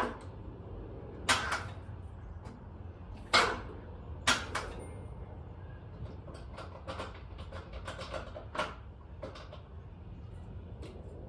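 A few sharp knocks about one, three and four seconds in, then a scatter of lighter clicks, over a steady low hum.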